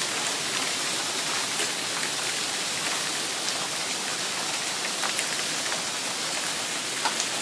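Heavy rain falling steadily in a downpour, with a few sharp ticks of drops or hailstones striking nearby surfaces, one of them louder near the end.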